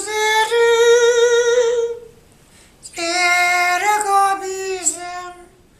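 A man singing unaccompanied in a high voice: two long held phrases with a break of about a second between them, the first with a wavering vibrato.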